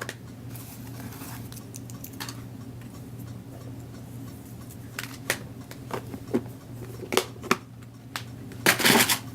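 Scattered light clicks and knocks of craft supplies being handled and put away on a desk, with a louder cluster of clatter near the end, over a steady low hum.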